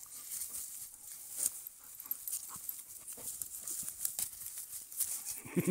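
A dog rolling and rubbing itself in dry grass and fallen leaves, the grass rustling and crackling with scattered light clicks. Just before the end a pitched voice begins, rising and falling.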